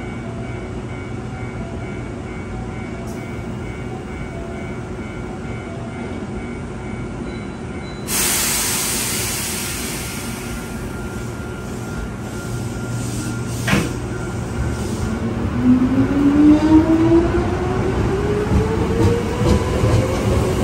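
Hankyu 7000 series electric train departing. It stands with a steady electrical hum, gives a sudden loud hiss of air about eight seconds in, and a sharp clunk comes a few seconds later. From there its motors whine, rising steadily in pitch as the train pulls away.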